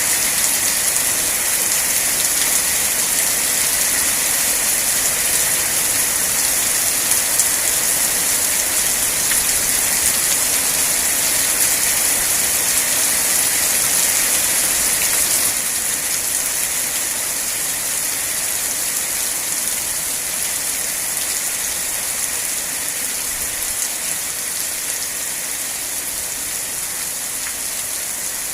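Rain falling steadily as an even hiss, with no separate drips or thunder standing out. It becomes slightly quieter a little past halfway.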